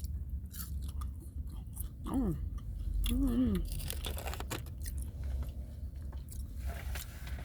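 A person chewing and biting food close to the microphone, with crunches and smacking clicks, and two short hummed "mm" sounds about two and three seconds in.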